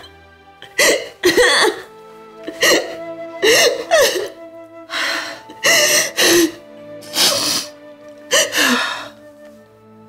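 A woman sobbing hard in short gasping bursts, about one a second, over soft background music.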